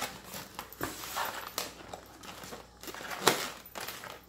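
Foil wrapping and a takeout container being handled, crinkling and crackling in irregular bursts, with one louder crackle about three seconds in.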